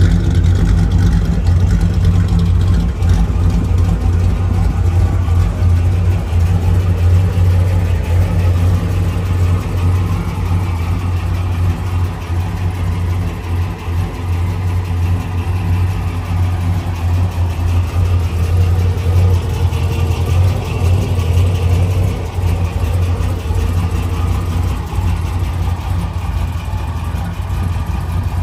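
1955 Chevy Bel Air's 383 small-block Chevy V8 with 8-stack electronic fuel injection idling steadily.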